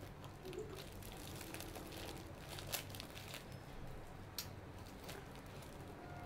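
Faint crinkling of a plastic onigiri wrapper being pulled open by hand, with small crackles throughout and a couple of sharper crackles, the loudest a little under three seconds in.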